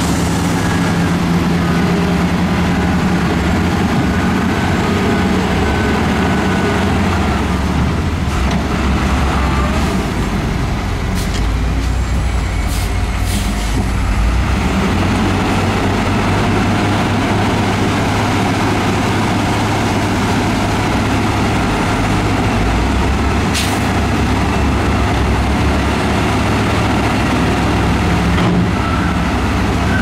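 Heavy diesel earthmoving machinery running steadily with a deep engine rumble. A few brief sharp sounds cut through near the middle and once more about two-thirds of the way in.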